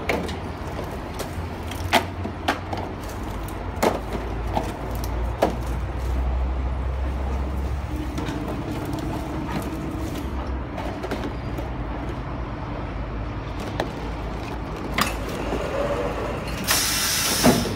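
Steady low hum of machinery in a workshop, with scattered sharp clicks and knocks, and a loud hiss about a second long near the end.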